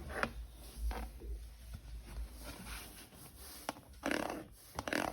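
Toy parts and plastic packaging being handled: scattered light clicks and short rustling or scraping sounds, with the longest, loudest rustle about four seconds in and another just before the end.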